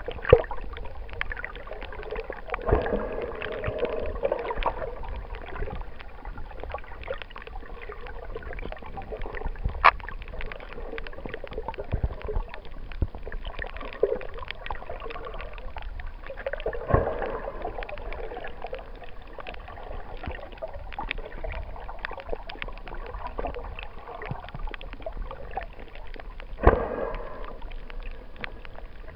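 Muffled underwater ambience picked up below the surface: a steady watery hiss with many scattered clicks, and a few louder swells of gurgling.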